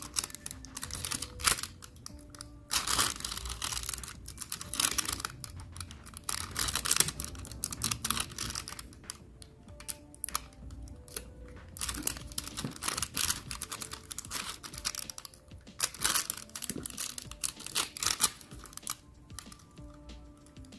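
Clear plastic nail transfer foil crinkling and crackling in irregular bursts as it is pressed onto a nail and peeled away, with faint background music.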